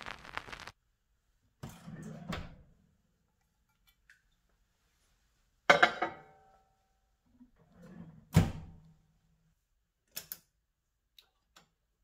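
Handling sounds of a 1983 Amana Radarange microwave oven: a clunk about two seconds in, a sharp clink with a short ring as a glass measuring cup is set down on the glass turntable tray, a heavier thunk a couple of seconds later as the door is shut, then a few small clicks from the controls near the end.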